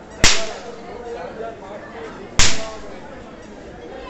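Two loud, sharp cracks about two seconds apart, each ringing out briefly, over the murmur of a crowd.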